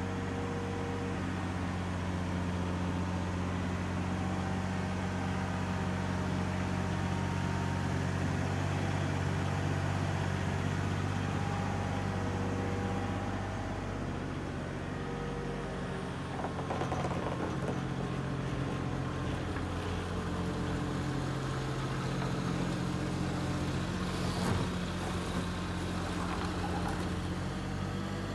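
Cat 302.5 mini excavator's 17 kW diesel engine running steadily while the machine slews and swings its boom, with short whining tones from the hydraulics coming and going. A few knocks from the swinging bucket and attachment, the sharpest about three-quarters of the way through.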